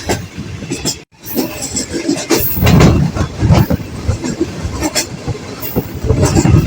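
Passenger train running at speed, wheels clattering over the rail joints, with wind rushing against the microphone in uneven gusts. The sound cuts out briefly about a second in.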